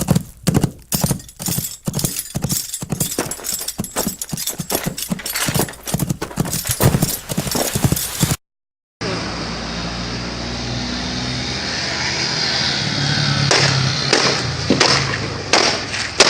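Rapid, irregular knocks in a clip-clop rhythm, a few per second, then a sudden cut to a different steady rushing noise with scattered sharp knocks toward the end.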